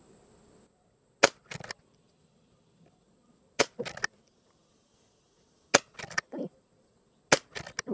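Four shots from a Brocock (BRK) Sniper XR Sahara PCP air rifle, sharp cracks a little over two seconds apart. Each shot is followed by a couple of quick, quieter clicks.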